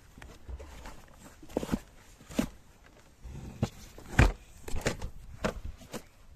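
Irregular footsteps and handling noises with a few sharp knocks, the loudest about four seconds in.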